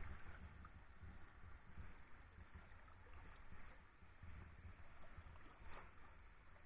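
Faint sloshing and trickling of a shallow stream as a person wades through it, over a low rumble.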